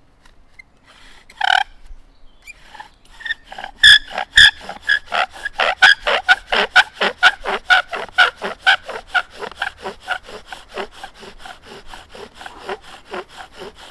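Bow drill friction fire set at work: the bow is sawed back and forth, spinning the wooden spindle against the hearth board. Each stroke gives a rasping squeak, about three a second in an even rhythm, after a single squeak about a second and a half in. The strokes are loudest about four seconds in and grow softer toward the end.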